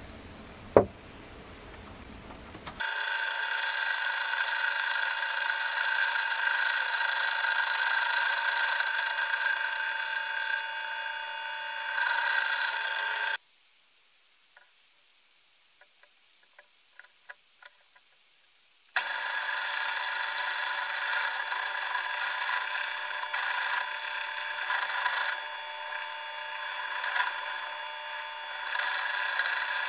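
Drill press motor running with a steady whine while boring into the end grain of a wooden knife handle, after a sharp click just before it starts. It stops about a third of the way through, a few light handling clicks follow, then it runs again about two-thirds of the way through.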